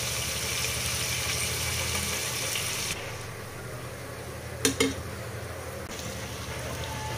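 Sliced onions sizzling in hot oil in a pot as they are fried soft and stirred with a spatula. The sizzle drops away in the middle and comes back near the end, and the spatula knocks twice against the pot, quickly, about two-thirds of the way through.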